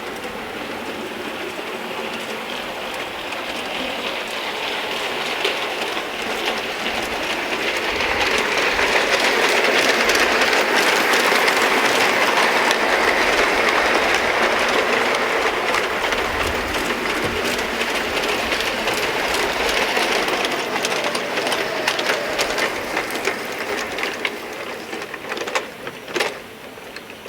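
G gauge model train running on garden railway track, wheels rumbling on the rails. It grows louder as it comes close, is loudest about halfway through, then fades as it moves away, with sharp clicks near the end.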